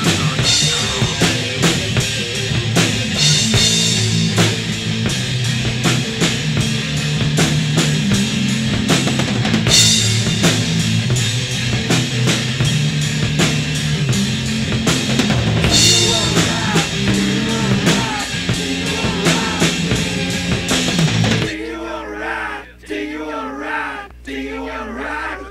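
Music led by a drum kit, with bass drum and snare, over a moving low bass line. About 21 seconds in it stops abruptly and a wavering, voice-like sound follows.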